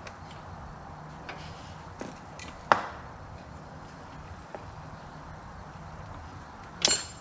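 Scattered light clicks and two sharp metallic clacks, the louder one near the end, from a hand grease gun being worked on a mower deck grease fitting that is not taking grease.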